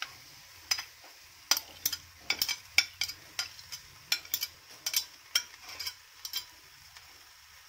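Metal spoon clicking and scraping against a china plate in many irregular sharp ticks as chopped plantain pieces are pushed off it into a pan. A faint sizzle from the hot melted sugar and coconut in the pan lies underneath.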